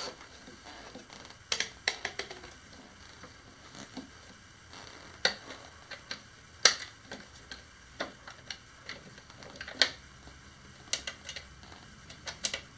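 Scattered sharp clicks and knocks of hard plastic parts being handled and fitted together on a white plastic dog toy, at irregular intervals.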